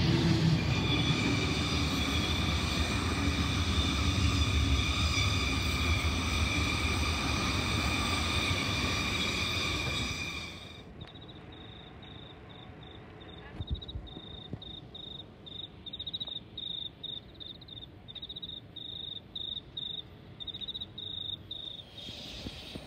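Electric passenger train running past at close range: a steady rumble of wheels on rail with a steady whine from its motors. About ten seconds in it gives way abruptly to a quiet background of crickets chirping in short high pulses.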